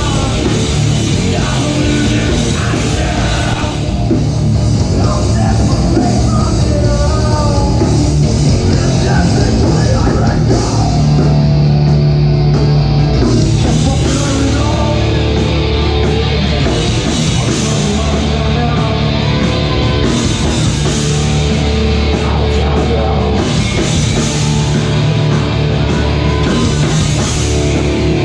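Metalcore band playing live at full volume: heavy distorted guitars, bass and drums, with held low chords coming back several times.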